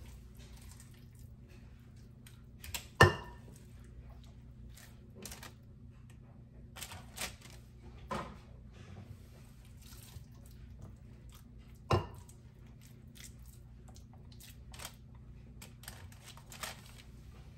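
Hands working wet meatball mixture, with soft squishing and scattered knocks and clicks of a scoop and utensils against a bowl or baking pan. Two sharper knocks stand out, about 3 seconds in and about 12 seconds in, over a steady low hum.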